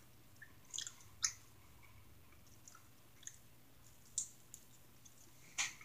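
Faint mouth sounds of eating a chicken wing: a few short, wet clicks and smacks of chewing and biting, spaced about a second apart.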